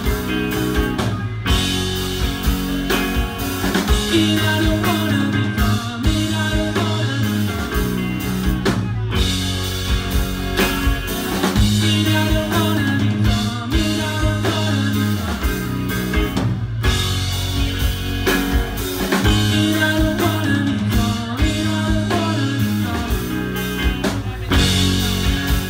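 Rock band playing live: drum kit, guitars and bass guitar.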